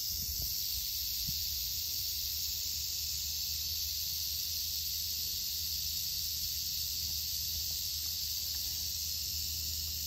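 Rattlesnake rattling its tail in a steady, unbroken high buzz. It is the snake's warning rattle, set off by something it sensed.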